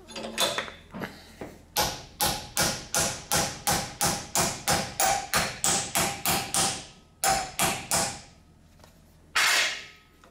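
Hammer blows on an aluminium lap joint clamped in a steel bench vise, bending the eighth-inch 5052 angle back to test a fusion weld made without filler rod. A few single strikes, then a fast, even run of about three blows a second for some five seconds, two more, and one longer, louder hit near the end.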